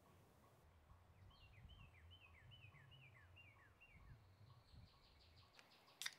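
Quiet forest ambience with a small songbird singing a run of about seven quick down-slurred notes, followed by a faint rapid trill. A sharp click comes near the end.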